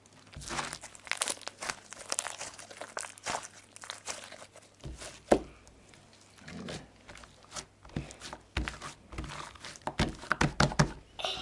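Homemade glue slime squeezed and stretched by hand, giving repeated sticky crackles and pops, with one sharp loud pop about five seconds in and a dense run of pops near the end.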